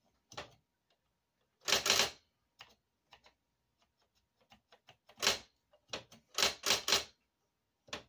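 Electric typewriter being typed on: irregular clacking key strikes, with louder runs of quick strokes about two seconds in and again between about five and seven seconds, and fainter single taps between.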